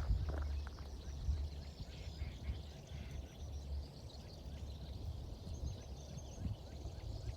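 A chorus of many small birds chirping and calling, faint and overlapping, over a steady low rumble.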